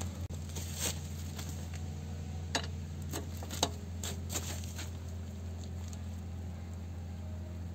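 Scattered sharp metal clinks of a steel wheel brace being fitted onto a GAZelle van's wheel nut, over a steady low hum.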